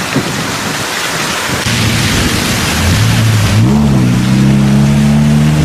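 Cars driving through floodwater on a road: a steady rush of water and spray. About two seconds in, an engine note comes in, rises once and then holds steady.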